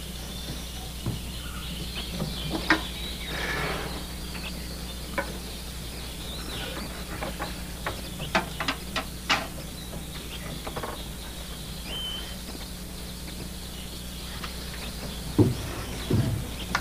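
Faint steady chirring of night insects over a low steady hum, with scattered clicks and knocks. A quick run of clinks comes about eight to nine and a half seconds in, and two low thumps near the end.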